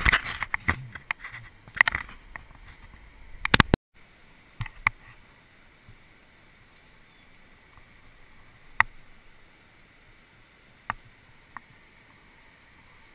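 Climbing rope and gear being handled: close rustling with rapid sharp clicks for about four seconds, which stops abruptly. After that come a few single clicks over a faint steady hiss.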